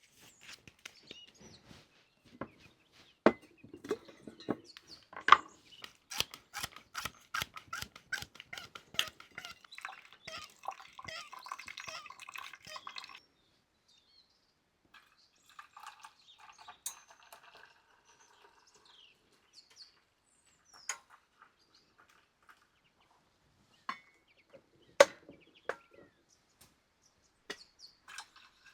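Scattered sharp clicks and knocks, thick and rapid through the first half and stopping suddenly near the middle, then sparse single knocks, with faint chirping among them.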